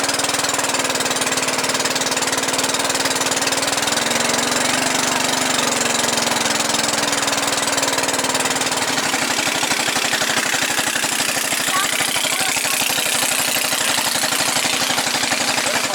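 A small engine running steadily, close by, with a fine even pulsing; its pitch sags and recovers a little about four to six seconds in.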